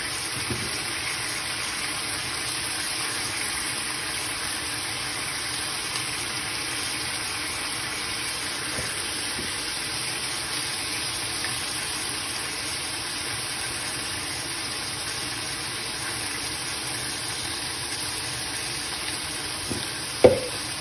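Marinated chicken breasts searing in a hot frying pan, sizzling steadily, with one sharp knock near the end.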